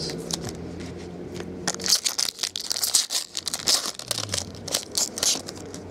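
A foil trading-card pack wrapper torn open and crinkled by hand, a quick run of sharp crackles starting about two seconds in.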